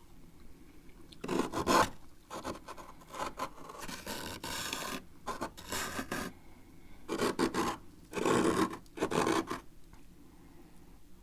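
A spoon scraping built-up frost off a freezer: a series of about seven rasping strokes, some short and some over a second long, with short pauses between them.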